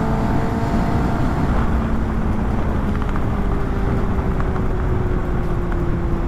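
Kawasaki ZX-10R's inline-four engine running at moderate revs, its pitch slowly falling as the bike eases off, under a steady heavy rush of wind noise.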